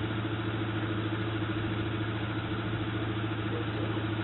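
Postal delivery truck's engine idling steadily.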